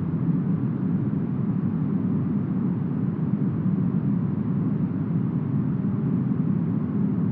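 Steady, smoothed brown noise: a deep, even rush with its weight low and little treble, with no changes or separate sounds.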